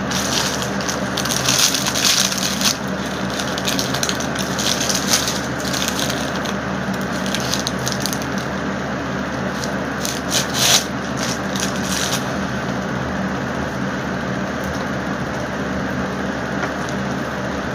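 Paper food wrapper crinkling in bursts as it is handled and bitten into, mostly in the first few seconds and again about ten seconds in, over a steady low hum.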